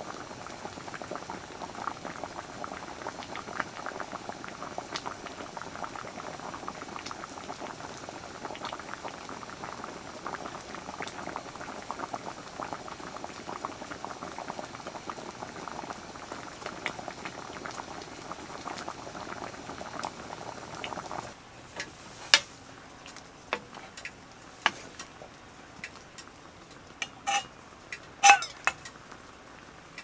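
A pot of stew boiling, bubbling steadily. About twenty seconds in it cuts to a quieter background with scattered sharp clicks and a few ringing clinks.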